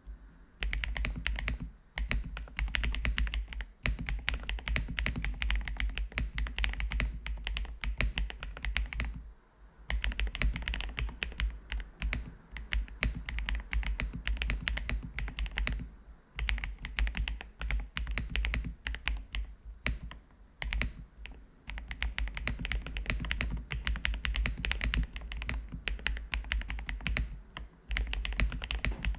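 Redragon K762 Pro mechanical keyboard with Mint Mambo switches being typed on quickly, a dense clatter of key clicks in long runs broken by several short pauses.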